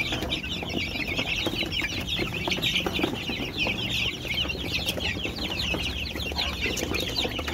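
A flock of month-old kampung chicks peeping constantly as they feed: many short, high, downward-slurred calls overlapping in a continuous chorus.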